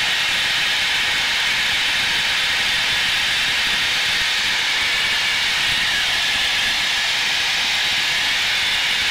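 Steady, loud rushing hiss of a Blue Angels F/A-18 fighter jet's cockpit in flight: airflow and engine noise while the jet accelerates in a descent.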